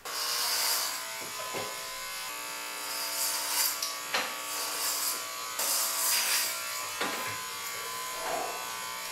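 Corded electric hair clippers switched on and buzzing steadily. The buzz grows louder and hissier in stretches as the blades cut through long hair at the side of the head.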